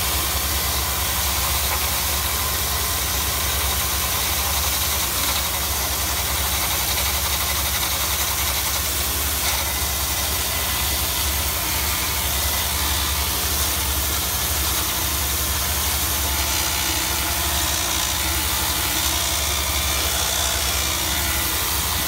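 A drain-cleaning machine runs steadily while its hose-fed resurfacing tool scours the rust scale inside a rust-caked 4-inch cast iron drain pipe. A constant hiss of spray blows out the pipe's far end.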